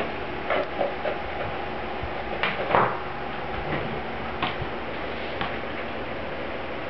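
A few light clicks and knocks of small objects handled on a wooden desk, spaced irregularly, the most distinct pair about two and a half seconds in, over a steady faint hum.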